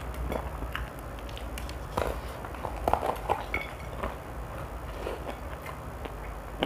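Close-miked eating sounds: the crispy coating of Sabana fried chicken crackling as it is torn and picked apart by hand, with chewing, in scattered clicks, loudest about two to three seconds in, over a steady low hum.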